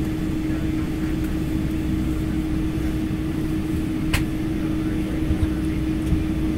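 Steady cabin noise of an airliner taxiing: a low rumble with a steady hum, and a single sharp click about four seconds in.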